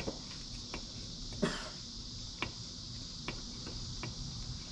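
Occasional light clicks and clinks of bolts, washers and tools being handled at a small engine while oil cooler lines are bolted on, over a steady high hiss.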